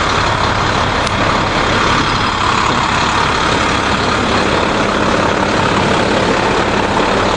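The engine of a large 22-foot box moving truck, idling steadily.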